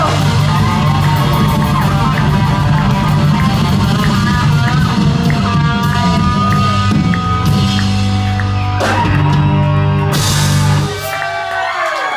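Live rock band (electric guitars, bass and drum kit) playing the instrumental close of a song, ending with the full band cutting off about eleven seconds in. Crowd yells and cheers follow.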